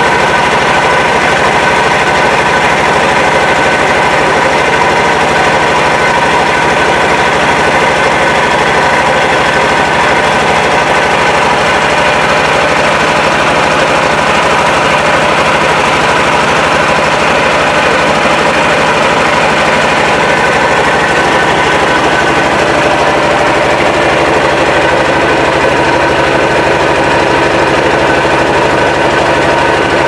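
A boat's engine running loudly and steadily at an even pitch while the boat is under way.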